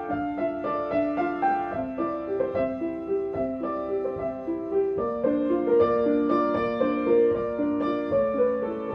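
Piano playing a gently moving melody of short, evenly spaced notes over a held bass note, with the bass dropping lower about five seconds in.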